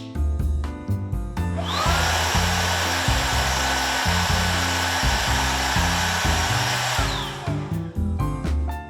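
Dios NX cordless canister vacuum cleaner's digital motor switched on, its whine rising as it spins up about two seconds in, running steadily with a loud rush of suction, then winding down with a falling whine about seven seconds in, over background music.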